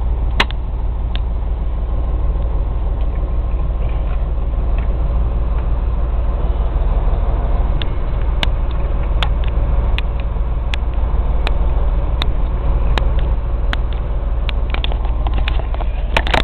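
Heard from inside the cab, a semi truck's diesel engine runs with a steady low rumble. From about eight seconds in, a regular click comes roughly every three-quarters of a second for several seconds.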